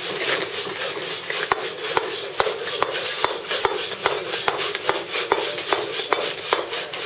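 Steel claw tool struck with a mallet against Bath stone: steady, even taps about two to three a second, with the gritty scrape of the claw's teeth cutting the soft limestone as the last layer is taken down.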